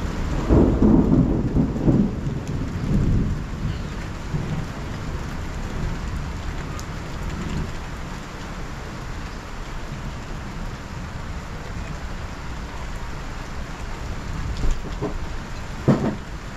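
Thunder rumbling over steady heavy rain, loudest in the first three seconds, then settling into the even hiss of the downpour. Two short sharp thumps come near the end.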